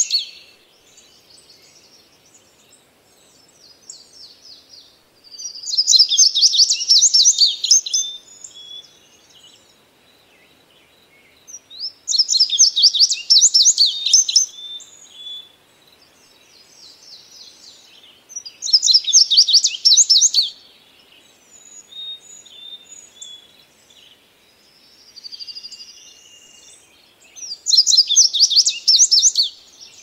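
Male indigo bunting singing: four loud, high song phrases of about two seconds each, coming every six to nine seconds. Fainter chirps and song phrases fill the gaps between them.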